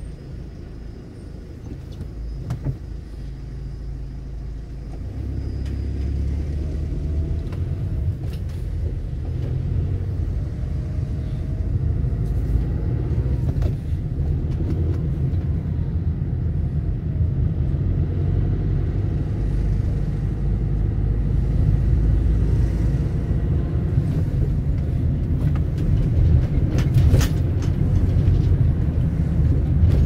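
Road traffic: a steady, deep vehicle rumble that grows gradually louder, with a few faint gliding whines and small clicks over it.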